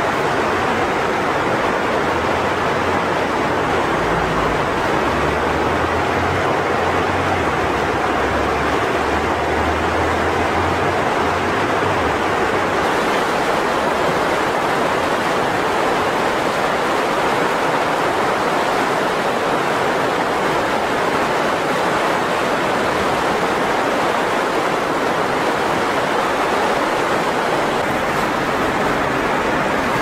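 Mountain river rushing through whitewater rapids: a steady, dense rush of water with no let-up.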